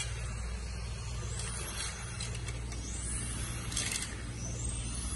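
Radio-controlled drift cars running on a track: their motors give three rising whines as they speed up, over a steady low hum.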